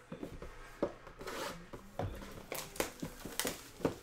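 Cardboard trading-card boxes and cards being handled and set down on a table: a run of irregular knocks and taps mixed with short rustles and scrapes, the sharpest taps about a second in and three more close together near the end.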